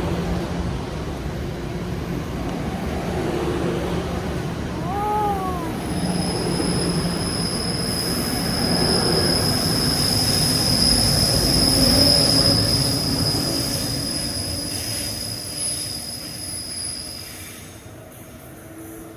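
Passenger train running through the station with a steady rumble, joined about six seconds in by a steady high squeal that lasts about ten seconds. The sound then fades as the train moves off.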